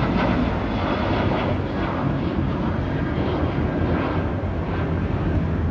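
Boeing 737 airliner's twin turbofan engines at climb power just after takeoff: a steady, deep jet noise.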